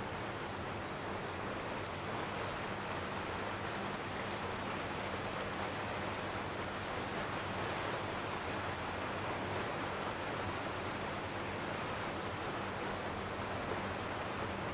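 Steady wash of small ocean waves in shallow water, mixed with wind: an even hiss that never lets up.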